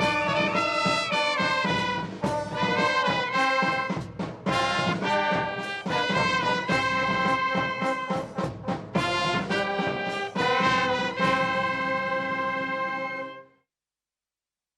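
Ceremonial military brass band playing, with sharp strokes under sustained brass chords, closing on a long held chord that cuts off about thirteen and a half seconds in.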